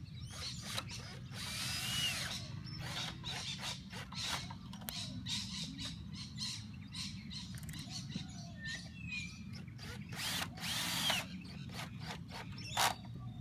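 Cordless drill with a hex head driver running in short bursts, driving 14 gauge hex head roofing screws through a metal antenna mount into roof tile. It is set on a clutch torque setting so it knocks off easily instead of driving on and cracking the tile.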